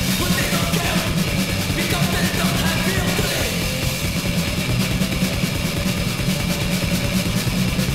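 Death/thrash metal recording: distorted electric guitars over fast drumming, dense and unbroken.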